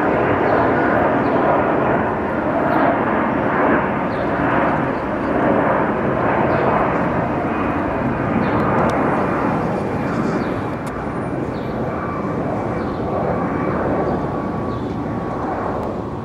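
Airbus A330-300 jetliner with Rolls-Royce Trent 700 engines flying overhead: a loud, steady jet rumble and rush with a faint steady whine on top, easing off a little in the second half.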